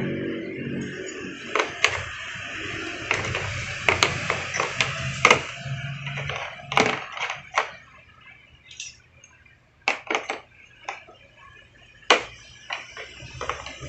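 Irregular sharp clicks and taps of metal drill bits and accessories being pushed into the slots of a hard plastic tool case, fewer and quieter for a few seconds past the middle.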